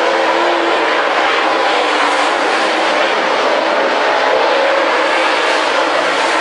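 A field of dirt late model race cars with V8 engines running hard at racing speed, a loud, steady, blended engine noise as the cars circle and pass along the front stretch.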